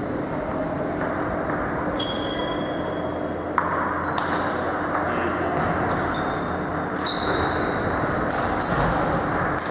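Celluloid-type table tennis balls clicking off bats and the table: scattered hits at first, then a rally from about four seconds in, some hits with a short high ping, over a steady background hiss.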